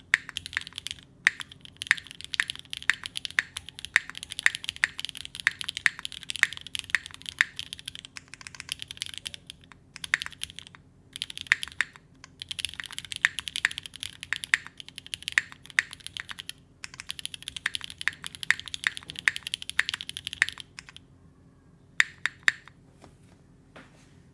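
Typing on a Singa Kohaku mechanical keyboard with lubed and filmed Vintage Black switches and GMK keycaps: fast runs of keystrokes punctuated by regularly spaced louder strokes, with short pauses between runs. The typing stops about 20 seconds in, and only a few last key presses follow.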